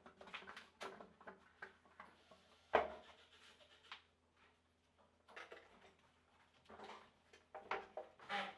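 Scattered light knocks, clicks and rubbing of workpieces being handled, with one sharper knock about three seconds in and a short lull after four seconds.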